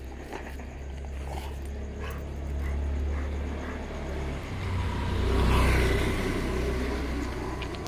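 A motor vehicle passing close by: a low engine rumble that swells to its loudest about five to six seconds in, then fades.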